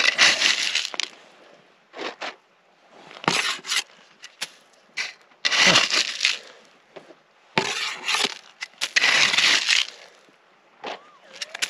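A digging tool scraping and breaking into gravelly ground and schist bedrock, in about five short strokes of a second or less, a second or two apart, while a metal detector target is dug out.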